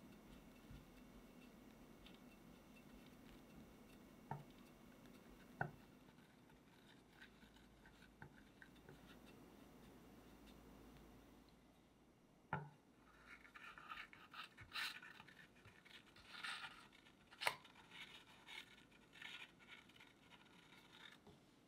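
Metal icing spatula and cake scraper spreading and smoothing whipped cream on a cake: faint soft scraping with a few light knocks, then a run of louder scraping strokes in the second half.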